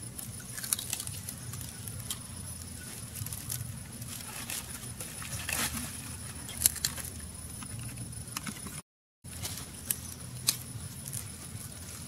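Scattered sharp clicks and crackles of a whole grilled bird being torn apart by hand and its meat chewed, over a low steady hum. The sound cuts out briefly near nine seconds.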